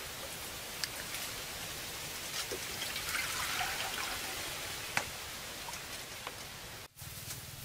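Water poured from a plastic bowl into a hot iron wok over a wood fire, splashing and sizzling for a second or two about three seconds in, over a steady hiss. A few sharp pops from the burning wood come through.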